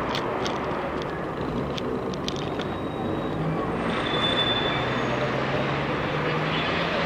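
Street noise of a large outdoor crowd with car traffic passing, a few sharp clicks in the first seconds and a steady engine hum in the second half.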